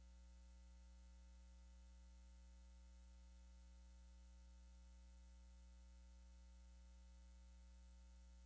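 Near silence, with only a faint, steady low hum.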